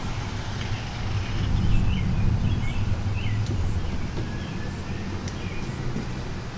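Outdoor ambience: a steady low rumble with short bird chirps every second or so.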